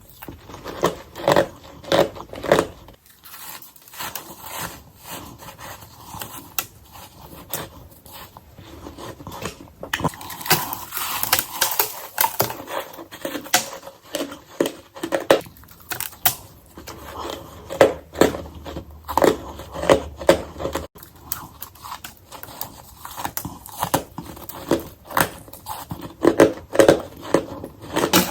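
Ice being bitten and crunched close to the microphone in a sped-up run of bites: many sharp crunches one after another, with a longer crackling, crumbling stretch about ten seconds in.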